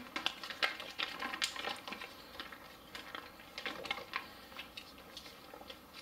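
Foil-laminate MRE retort pouch crinkling as it is squeezed to push rice out of it: a scatter of small, irregular crackles, busier in the first couple of seconds.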